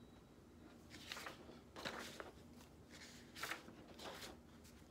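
Sheets of drawing paper and sketchbook pages rustling faintly as they are lifted and turned over by hand, in a few short brushes.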